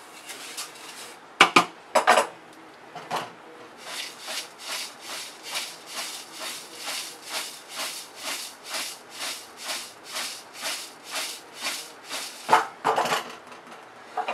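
Wooden spatula knocking twice against a large aluminium pot, then dry roasted flattened rice (poha chivda) swishing and rattling in the pot as it is shaken back and forth, about two or three swishes a second. A few louder knocks and scrapes come near the end.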